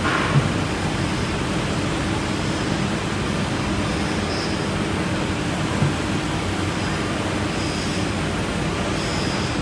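CNC wood router at work, its spindle carving grooves into a wooden panel: a steady mechanical noise with a low hum, and two brief knocks, about half a second in and near six seconds.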